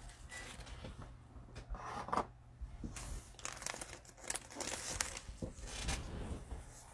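Trading cards and their packaging being handled: faint, irregular rustling, crinkling and sliding scrapes.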